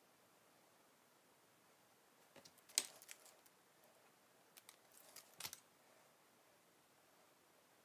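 Near silence broken by two short clusters of sharp clicks and taps, about three seconds in and again around five seconds: a small metal palette knife being set down and a piping bag of buttercream picked up and handled.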